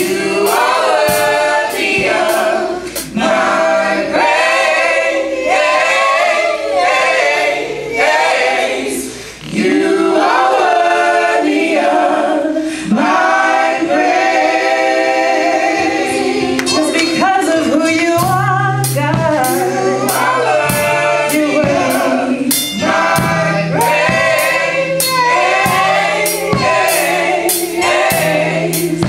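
Mixed gospel choir of men and women singing together, backed by a drum kit. The cymbal strokes thin out for a stretch in the middle and come back thick from about halfway, when a low bass line also joins.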